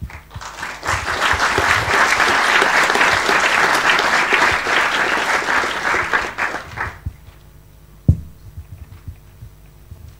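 Audience applauding for about seven seconds, then dying away, followed by a single low thump about eight seconds in.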